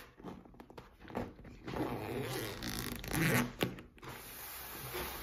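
Zipper on the DJI Mini 2 fabric travel bag being drawn open in several rasping pulls, loudest about two to three and a half seconds in.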